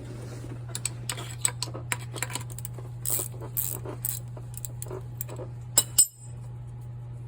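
Irregular metallic clinks and taps of hand tools on metal, two sharp ones just before six seconds in, over a steady low hum.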